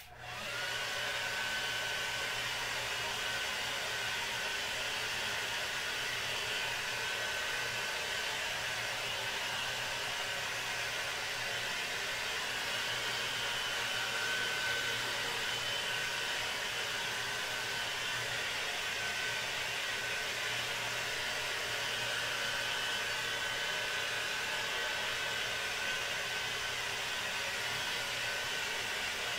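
Handheld hair dryer switching on and blowing steadily, its whine rising for about the first second as the motor comes up to speed, then holding an even pitch.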